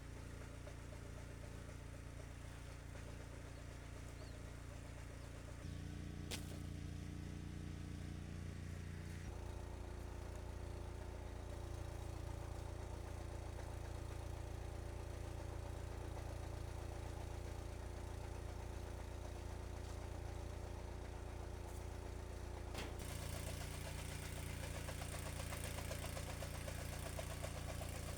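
Engine of a chaff cutter running steadily while chopping maize stalks for silage. Its note shifts abruptly a few times, and there are sharp clicks about six seconds in and near the end.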